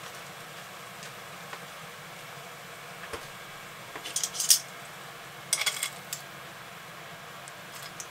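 Metal kitchen tongs clicking and clattering as they are picked up and handled, loudest about four seconds in with a second clatter a second later and a few light clicks near the end, over the steady sizzle of bacon frying in a cast-iron skillet.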